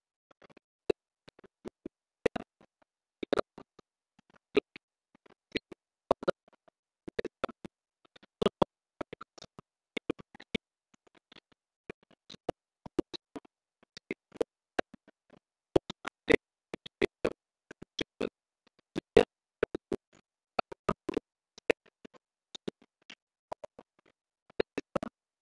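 Irregular sharp clicks and taps, a few each second.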